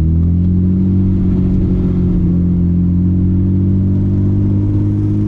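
Nissan Skyline GT-R R32's RB26DETT twin-turbo straight-six pulling steadily in gear, its note climbing fast at first and then rising slowly and evenly.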